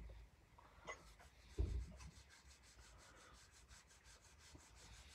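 Faint scratching of a marker pen's tip on sketchbook paper in quick, evenly repeated short strokes, as detail is coloured in. A soft low thump sounds about one and a half seconds in.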